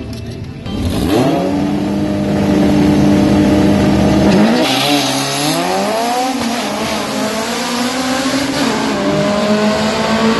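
Drag race car engine held at high revs on the line, then launching and accelerating hard away. Its pitch climbs, drops and climbs again as it shifts up through the gears.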